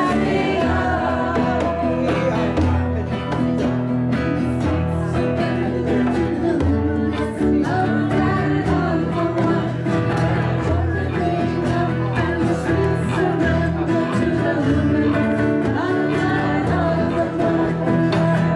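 Live singing with an acoustic guitar accompanying, led by a woman's voice into a microphone.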